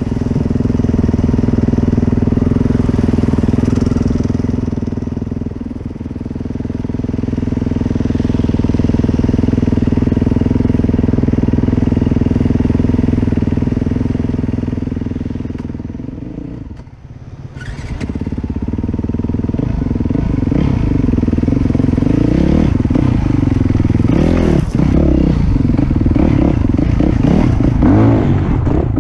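Dirt bike engine heard from the bike itself, running at a steady cruising speed, then dropping off briefly a little past halfway before picking up again with revs rising and falling unevenly.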